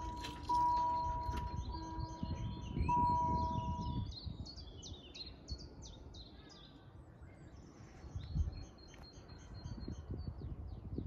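Level-crossing warning bells sounding a steady ringing tone with brief breaks while the half-barriers lower, falling silent about four seconds in once the barriers are down. Small birds chirp and sing throughout, and there is a single thump near the end.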